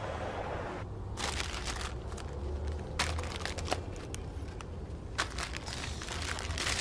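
Plastic snack-chip bags crinkling and rustling as they are rummaged through, in irregular bursts with sharp crackles about 3 and 4 seconds in. A car passes during the first second.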